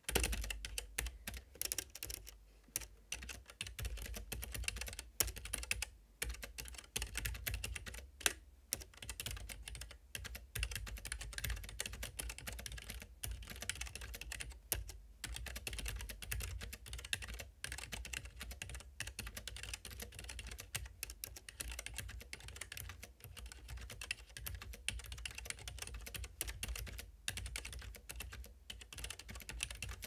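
Fast, continuous typing on a Keychron K3 low-profile mechanical keyboard fitted with Gateron low-profile optical linear white switches: a dense, unbroken run of keystroke clicks.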